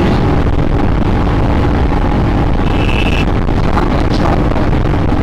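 Wind rushing over the microphone, with the Royal Enfield Scram 411's single-cylinder engine running hard and steady at about 140 km/h, near the bike's top speed.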